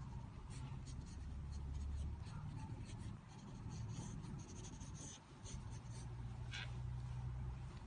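Pencil lead scratching on notebook paper in short, irregular strokes as letters are written, over a low background hum.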